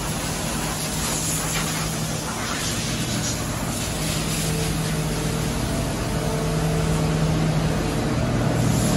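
Steady din of tile-factory machinery at the pressing line: a constant low hum from running motors and roller conveyors under a continuous noisy wash.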